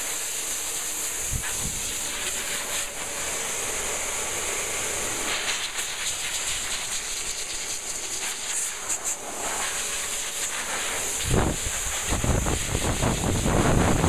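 Hose-fed hairdryer blowing air over a dog's coat: a steady hiss. Over the last few seconds the airflow buffets the microphone with a louder, low rumble.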